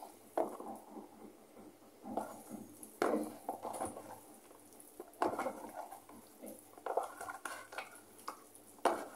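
Hands mixing and squeezing pieces of boiled pork in a wet marinade inside a plastic tub. The mixing comes in short irregular spells every second or two, with the tub knocking and rubbing.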